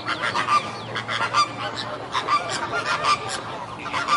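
Flock of flamingos honking, many short calls overlapping one another.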